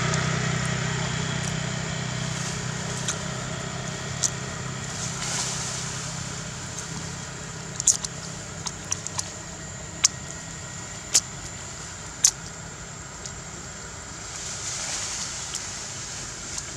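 A motor vehicle's engine hum that fades over the first several seconds, under a steady high thin tone, with a handful of sharp clicks scattered through the middle.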